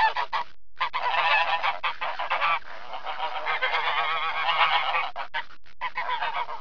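King penguin colony calling: many overlapping, wavering calls at once, broken by a couple of short gaps.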